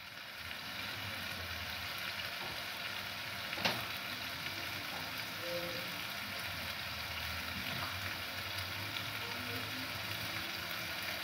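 Food sizzling steadily in pans on a gas stove, with a single light click or knock about four seconds in.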